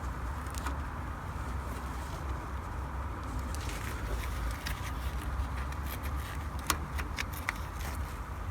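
Scattered small clicks and taps of hand work with a syringe at a car's rear suspension, a few sharper clicks toward the end, over a steady low hum.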